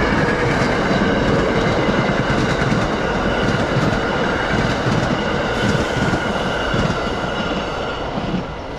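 NJ Transit commuter train's passenger coaches rolling past close by, a loud, continuous rush of wheels on rail that eases off near the end as the last car goes by.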